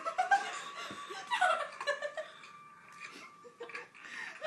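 Women laughing in short fits, dying down about halfway through and picking up again near the end.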